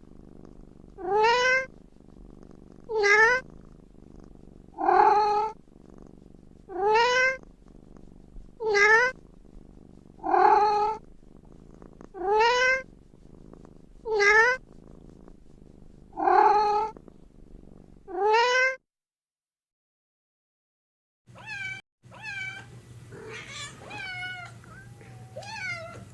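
Domestic cat meowing repeatedly, ten loud drawn-out meows about two seconds apart. After a brief silence comes a quieter series of shorter meows over a low hum.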